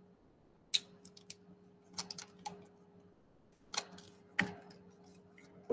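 Plastic drinking straws clicking and rattling against each other as a bundle of them is handled, in scattered short clicks and small clusters of clicks, over a faint steady hum.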